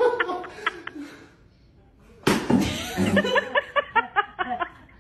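A group of people laughing. Laughter tails off, there is a short lull, then a sudden loud burst about halfway through, followed by quick, rhythmic ha-ha laughter.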